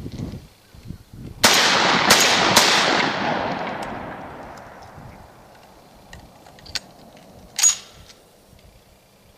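Carina AS-12 12-gauge shotgun fired three times in quick succession, about half a second apart. The reports ring out and fade over a few seconds, followed by a few sharp clicks near the end.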